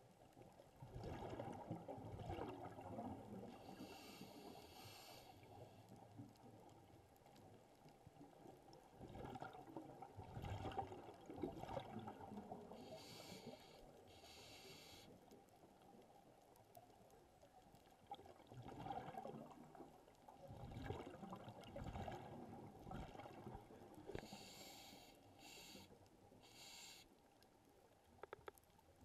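Scuba diver breathing through a regulator underwater, faint: slow breaths about every ten seconds, each a bubbling rush of exhaled air followed a little later by a short hiss of inhaling.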